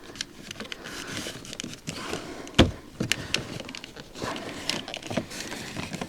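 Plastic door trim piece being handled and pressed into place on a car door: scattered clicks and knocks, with one hard thump about two and a half seconds in, as the hook and clips are worked into their seats.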